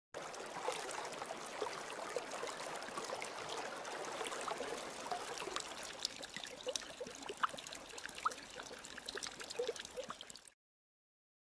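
Water trickling and gurgling, with many small plinks over a steady splashy hiss. It cuts off suddenly near the end.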